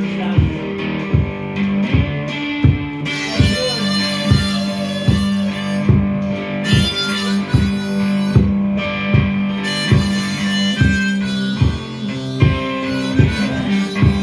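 Instrumental blues break: an electric cigar box guitar droning a steady riff, with a harmonica playing over it and a thumping beat about two to three times a second.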